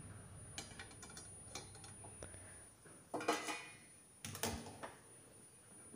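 Faint clinks and scrapes of a spoon against a frying pan, with two louder short scrapes about three and four and a half seconds in.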